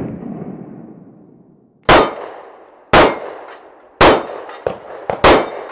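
Sig Sauer P365 pistol fired four times, about a second apart. Each shot is followed by the ringing clang of a steel target being hit, with a couple of lighter clangs between the last two shots. The ringing tail of an earlier shot fades out at the start.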